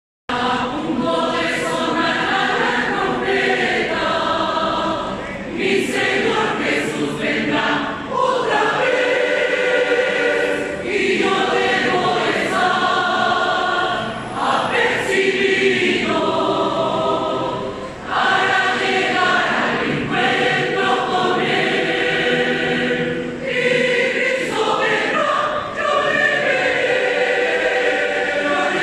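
A large choir of men and women singing a Spanish-language hymn in phrases, with short breaks between lines.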